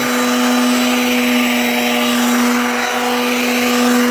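A steady electric motor drone: a constant hum with a loud rushing hiss, unchanging throughout.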